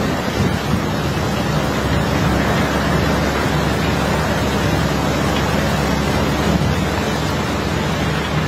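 Steady rushing hiss of a hose's water jet spraying onto the iron ore and the steel of a barge hold, over a steady engine drone.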